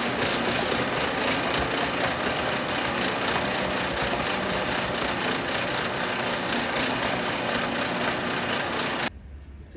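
Mixer truck engine running steadily while wet mortar slides down its chute and slumps into a plastic tub. The sound cuts off suddenly about nine seconds in.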